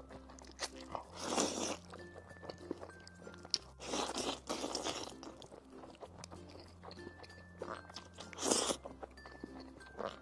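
Close-miked eating sounds: spicy fire noodles slurped in three long, noisy pulls, about a second, four seconds and eight and a half seconds in, with wet chewing and small clicks between. Soft background music plays underneath.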